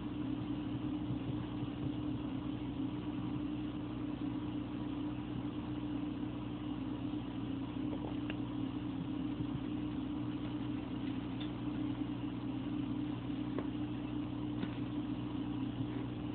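Aquarium pump running with a steady low hum. A few faint ticks sound over it.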